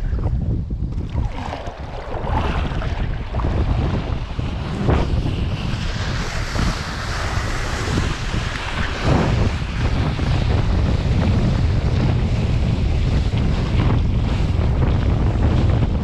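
Wind buffeting the action camera's microphone over the rushing spray of a kiteboard (Mday Play) planing and cutting across choppy sea water. The water hiss grows stronger after about five seconds.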